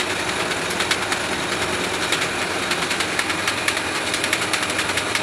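Motorized coil-winding machine running steadily, winding 34-gauge enamelled wire onto a ceiling fan's coil set, with a fast, even ticking.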